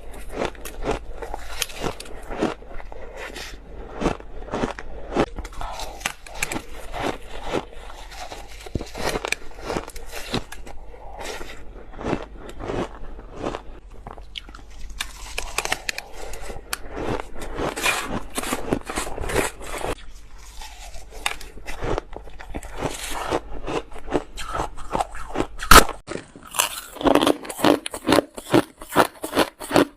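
Ice being bitten and crunched between teeth, close to the microphone: many crunches in quick succession. About 26 seconds in there is one loud crack, after which the bites come sharper and further apart.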